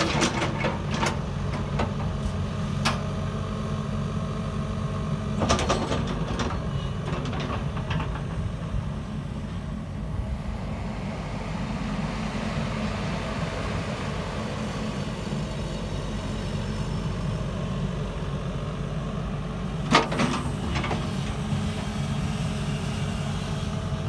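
JCB 220LC Xtra crawler excavator's diesel engine running steadily while the boom and bucket are worked hydraulically. A few sharp knocks come about five seconds in and again near the twenty-second mark.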